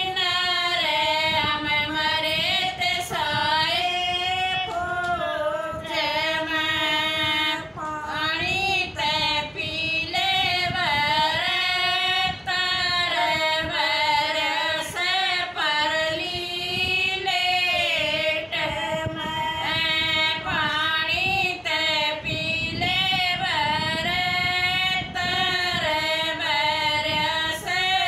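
Three women singing a Haryanvi song together, unaccompanied, with long held notes that waver in pitch.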